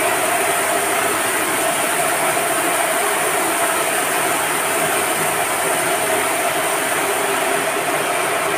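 Reverse osmosis plant running: a steady mechanical drone from its pumps, with a constant mid-pitched whine over an even hiss.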